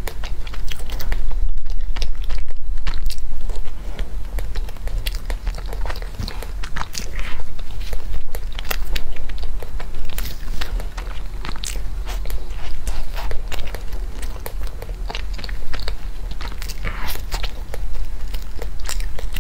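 Close-miked eating of a crusty bread bun: biting and chewing, with many small crackles from the crust, over a steady low hum.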